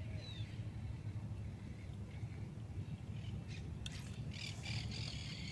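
Birds squawking and chattering outdoors, building up about four seconds in, over a steady low rumble, with a couple of sharp clicks just before.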